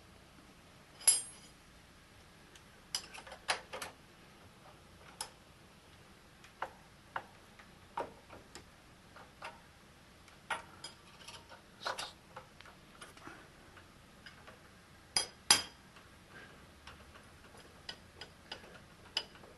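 Scattered light metallic clicks and clinks of hand tools and machine parts being handled on a milling machine, a few with a short ring. The loudest come about a second in and twice near the 15-second mark.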